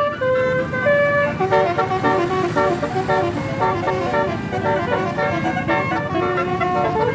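Tourist bus telolet horn playing a quick melody of short stepped notes, several tones sounding together, over low engine and traffic noise.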